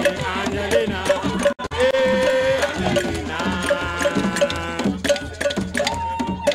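Music with a steady beat, percussion and a melodic lead line; it cuts out very briefly about one and a half seconds in.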